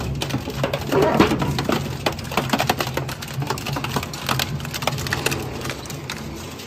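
Dual-shaft shredder tearing up a steel drum: rapid cracking and crunching of the metal between the toothed cutters over the steady low hum of the machine's drive, with a short screech about a second in. The crunching eases off toward the end.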